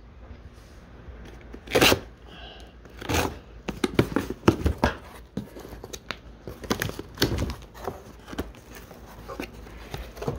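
A cardboard shipping box being opened: its packing tape is slit and ripped off, and the cardboard flaps are pulled apart, in a series of short, sharp rips and rustles.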